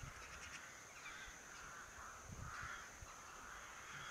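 Faint outdoor ambience: a steady hiss with several soft, hoarse calls about a second apart.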